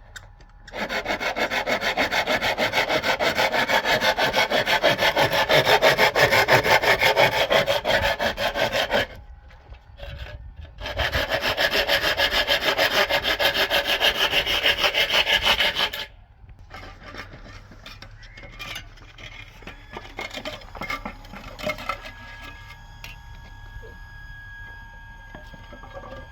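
Fast, repeated rubbing or scraping strokes in two long runs, one of about eight seconds and one of about five, followed by quieter scattered handling knocks.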